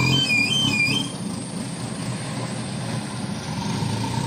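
Diesel engine of an ACE FX230 pick-and-carry crane running under lifting load, with an electronic warning alarm warbling between two pitches for about the first second, then stopping, leaving the engine running more quietly.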